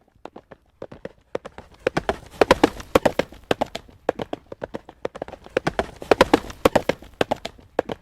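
Horse's hooves trotting on a hard road surface: a quick, even clip-clop of sharp hoofbeats, swelling louder twice, about two seconds in and again about six seconds in.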